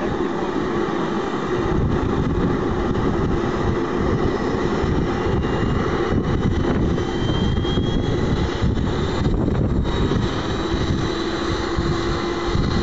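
Large-scale radio-controlled Mi-24 Hind model helicopter running on the ground, its engine spooling with the main rotor turning slowly, a steady mechanical hum with a brief rising whine about seven seconds in.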